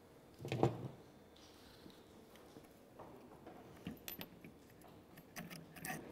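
Light metallic clinks and knocks as the exhaust pipe and its fixings are handled and offered up to the engine of a Honda Camino PA50 moped. The loudest knock comes about half a second in, and scattered sharp clicks follow near the end.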